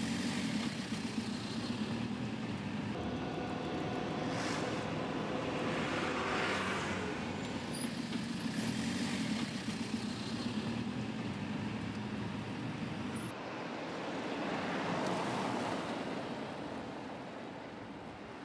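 Tyre and road noise with passing traffic, heard inside the cabin of a 1953 Morris Minor converted to electric drive, so there is no engine sound, only a steady low hum under the road noise. About two-thirds of the way in it changes to street traffic noise, with a vehicle passing and fading away.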